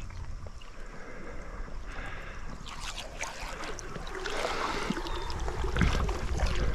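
Water gurgling and splashing beside a boat as a musky bait is drawn through a figure-eight with the rod tip in the water, with a few light knocks. It gets a little louder about four seconds in.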